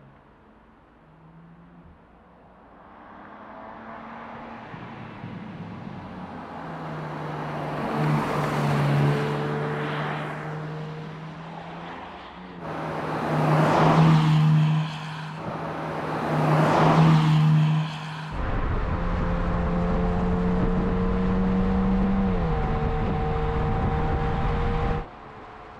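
2021 BMW M3 Competition's twin-turbo inline-six, through its particulate-filter exhaust, approaching and passing by at speed several times, the engine note swelling and falling away with each pass. Then a steady run with a deep rumble, the engine note dipping once near the end before it cuts off suddenly.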